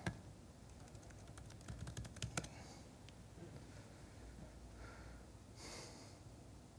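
Faint typing on a laptop keyboard: a quick run of key clicks about two seconds in, then a few scattered clicks.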